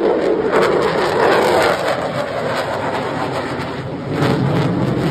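Lockheed Martin F-22 Raptor's twin Pratt & Whitney F119 turbofan engines passing overhead: loud jet noise with a rapid crackle, swelling again about four seconds in.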